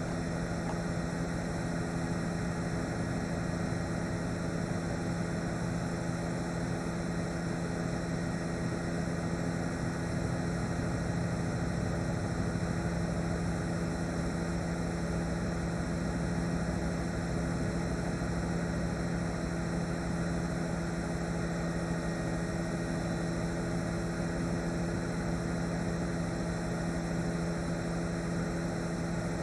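News helicopter's steady engine and rotor drone, several low held tones over a constant hiss.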